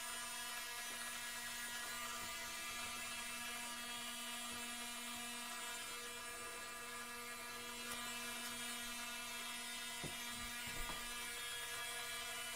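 Small hobby servo motors of an InMoov robot head, buzzing and whirring steadily. The whir grows louder for a few seconds twice, as the servos move to track. A couple of soft knocks come near the end.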